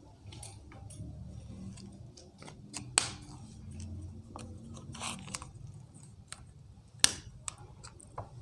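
Whiteboard marker being handled: two sharp plastic clicks, about three seconds and seven seconds in, with lighter ticks and taps between them, over a low room hum.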